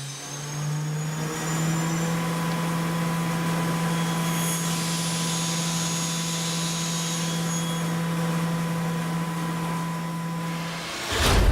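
CNC mill spindle running a solid carbide slitting saw through material: a steady, even hum with a constant hiss over it, which cuts off suddenly near the end.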